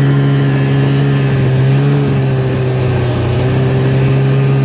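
Snowmobile engine running steadily at an even speed, its pitch holding nearly constant.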